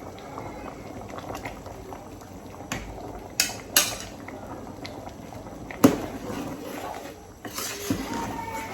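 Pot of soup bubbling on the stove, with a few sharp clinks of a metal utensil against the pot, the loudest about six seconds in.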